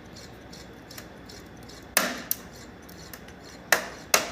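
Split AC indoor unit, switched off with its cooling coil iced over, giving sharp irregular clicks over a faint steady hiss: one about two seconds in and two close together near the end. The technician puts the sound still coming after shutdown down to the heavy build-up of ice in the unit.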